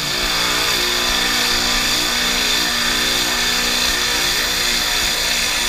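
Pressure-washer rotary surface cleaner spraying high-pressure water across clay roof tiles: a loud, steady hiss. Beneath it is the steady hum of the pressure washer's Honda GX690 V-twin engine.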